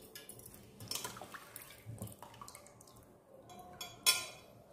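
Handfuls of wet, soaked horse gram dropped into a stainless-steel mixer-grinder jar: soft wet patters and drips with light clinks against the steel, and one sharper, louder hit near the end.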